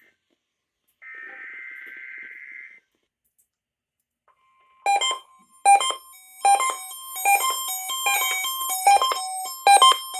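One raspy burst of NOAA Weather Radio EAS/SAME header data, the digital code that opens the alert, about a second in. Then, after a short silence, the steady 1050 Hz Weather Radio alarm tone starts about four seconds in, and a quick run of struck, keyboard-like musical notes sounds over it.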